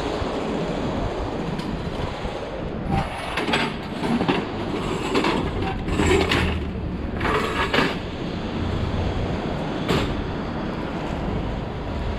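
Metal pedestrian barrier panels rattling and clanking as they are handled on a trolley, in several irregular bursts of clatter over about five seconds. Under them runs a steady rumble of street traffic.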